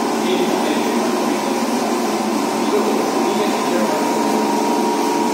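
DC shunt motor and its coupled alternator running with a steady whir and a faint high whine, speeding up from about 1400 toward 1485 rpm.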